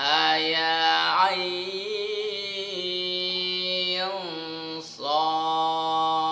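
A man's voice reciting the Quran's disjointed opening letters (huruf muqatta'ah) in a melodic tajwid chant, each vowel drawn out and held steady for seconds as the elongation rules require. About four seconds in the note glides down and breaks off, and a new long held note starts about a second later.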